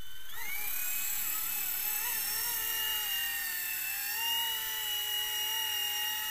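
Small electric RC helicopter (XK K200 fixed-pitch mechanics) flying: a steady high-pitched motor and rotor whine that rises in pitch just at the start as it spools up, then wavers slightly with throttle as it lifts off and hovers.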